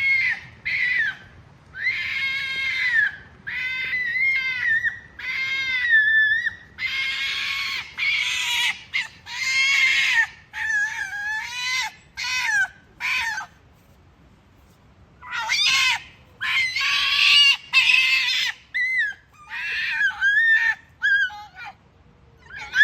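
Ezo red foxes, a parent and kit, calling: a long run of high-pitched screaming whines, each under a second or so and bending in pitch, with a pause of about two seconds past the middle.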